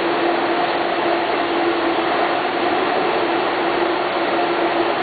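Steady machinery noise of an engine-painting line cell: a constant hiss with a steady hum running through it.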